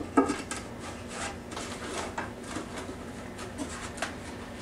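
Clay being scraped off a potter's wheel head by hand and with a tool: a string of small scrapes and clicks with one sharper knock near the start, over a steady faint hum.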